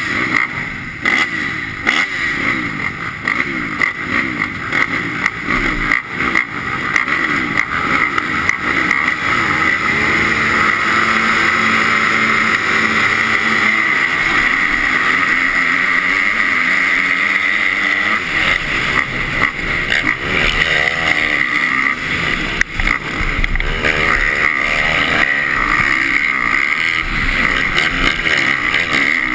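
A pack of 250-class motocross bikes revving together at the start gate, then the rider's own dirt bike accelerating hard and shifting up through the gears. Heard from a helmet-mounted camera.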